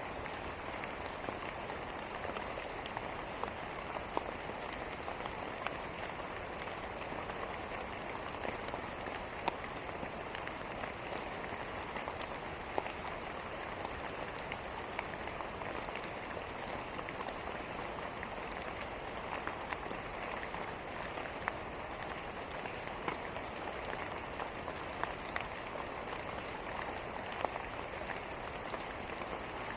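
Steady rain falling: an even hiss of rain with many scattered, sharper drop ticks.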